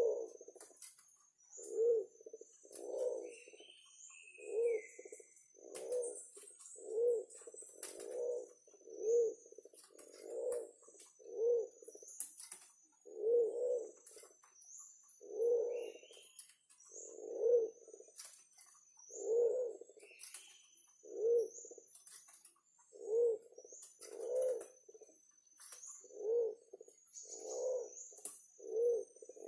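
Forest pigeon cooing over and over, short low coos at about one a second, with thin high chirps from other birds or insects above.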